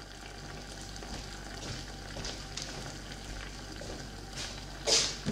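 Diced apple simmering in a little water in a small stainless-steel saucepan: a steady, faint bubbling sizzle. A brief louder noise comes near the end.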